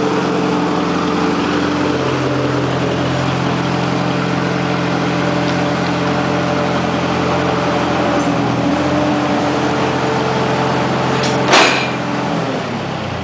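1944 Farmall H tractor's four-cylinder engine running steadily as the tractor drives forward. About a second and a half before the end comes a single sharp clank, and after it the engine note drops.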